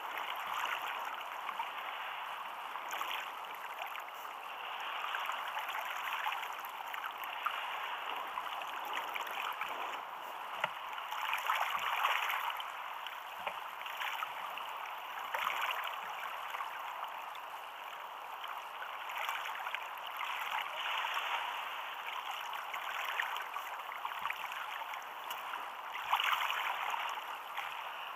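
Choppy sea water splashing and lapping against the hull of a sit-on-top fishing kayak, swelling louder at irregular intervals as waves pass.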